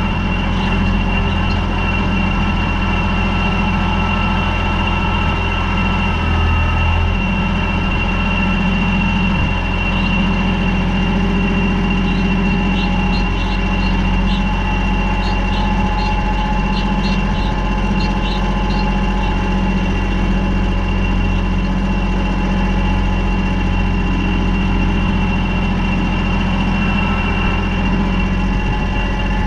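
Tractor diesel engine running at a steady speed. About halfway through comes a run of short, high squeaks.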